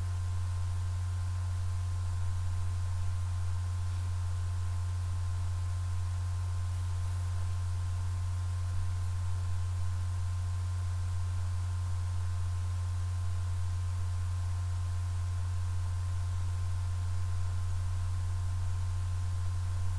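Steady low electrical hum with faint, steady higher tones above it, unchanging throughout.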